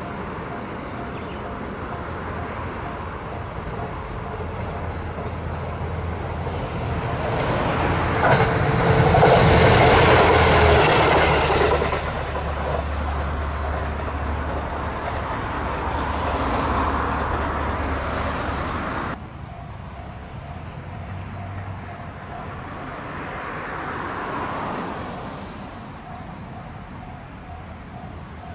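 A diesel railcar passing, its engine humming low under the rolling rumble and clatter of wheels on rail. The sound builds to its loudest about ten seconds in, breaks off abruptly twice, then swells more faintly again later.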